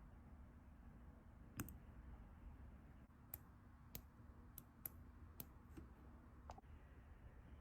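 About eight sharp, light clicks and taps spread irregularly over several seconds from small metal tools working on a watch. Under them runs a faint steady hum.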